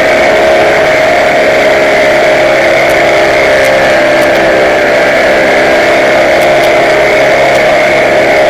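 Engine of the light aircraft carrying the camera, running at a steady speed throughout, heard on board as a constant drone.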